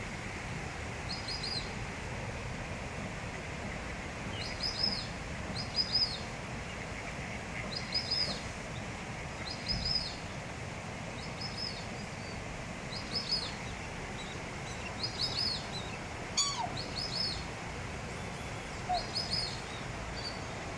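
Black swan cygnet peeping: short high chirps, often in pairs, repeated about every second, from a cygnet separated from its family on the bank. A single sharp click sounds late on.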